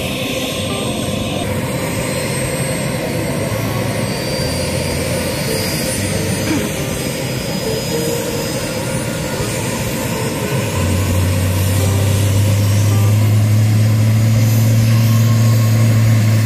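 Military helicopter turbine engines running on the ground before take-off: a steady jet-like whine and rush that grows gradually louder. A steady low drone joins about two-thirds of the way in.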